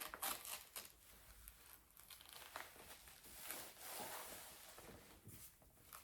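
Faint rustling and crinkling of a Velcro-fastened leg massager wrap being handled and fastened, with a few sharper scratchy rasps in the first second.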